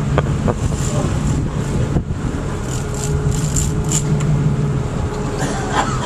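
Boat engine running steadily at low speed, a constant low hum under wind and water noise, with scattered light clicks and rattles.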